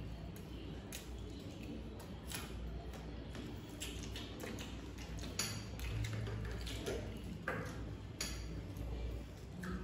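Eating chicken biryani by hand from plates: scattered soft clicks and small clinks from fingers working rice against the plates, over a low steady hum.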